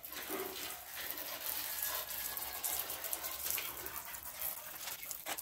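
Water spraying onto a soaped car engine bay to rinse it, an uneven hiss and splash.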